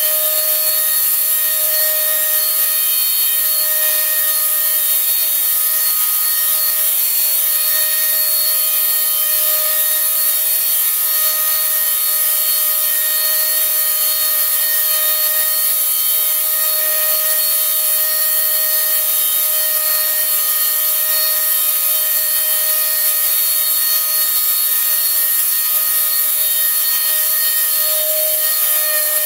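A steady, even hiss that holds the same level throughout, with a faint hum of thin tones underneath.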